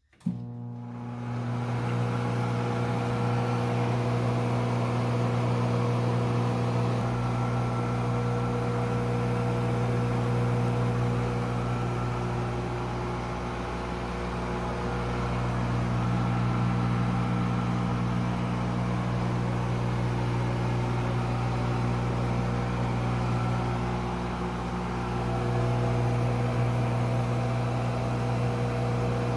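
Microwave oven running at full power, a steady electrical hum with a constant low drone that swells gently now and then. It starts just at the beginning.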